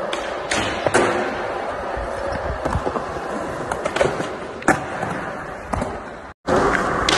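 Skateboard wheels rolling on smooth concrete, broken by several sharp clacks of the board popping and landing. The sound cuts out briefly near the end.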